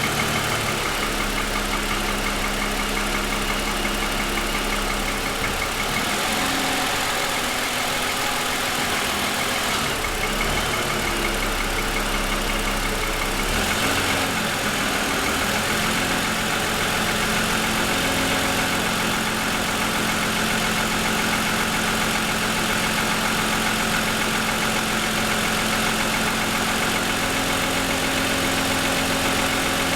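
2007 Lexus ES350's 3.5-litre V6 idling cold with a pronounced piston-slap knock. The owner takes it for a design or production defect.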